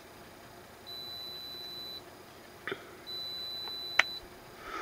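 Electronic beeping: a steady high-pitched tone about a second long, sounding twice with a second's gap between, part of a beep that keeps repeating. A small click comes partway through, and a sharp click, the loudest sound, about four seconds in.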